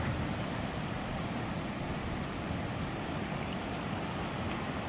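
Steady rushing of a flowing river, with wind on the microphone; an even noise with no distinct events.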